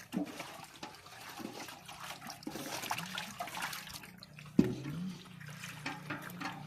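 Water splashing and running, with a single sharp knock about four and a half seconds in.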